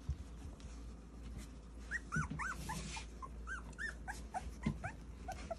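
Young micro Sheepadoodle puppies squeaking and whimpering: many short, high squeaks, several overlapping, starting about two seconds in, over faint rustling.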